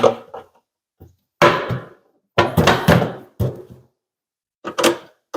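A series of irregular wooden knocks and thunks from a small drawer cabinet as its top is worked loose from its connector latches.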